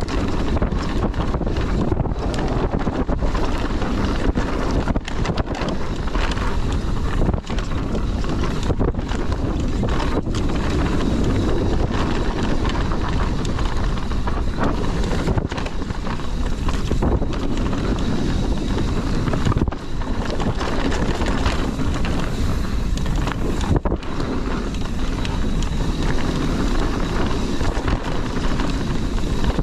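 Mountain bike riding fast down a dirt trail: steady wind rush on the microphone over the hum of the tyres rolling on dirt.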